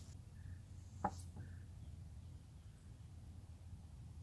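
Quiet outdoor background with a faint low hum, one faint click about a second in, and two faint short chirps.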